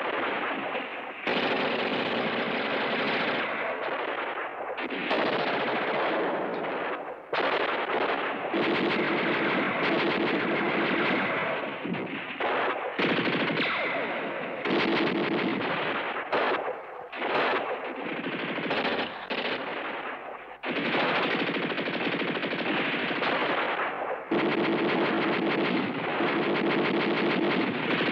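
Tripod-mounted machine gun firing in long bursts, each lasting several seconds, with short breaks between them.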